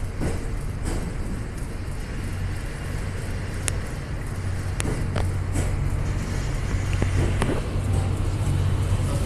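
Cassiopeia sleeper train's E26-series passenger coaches rolling slowly into a platform, a steady low rumble and hum that grows slightly louder toward the end, with a few sharp clicks.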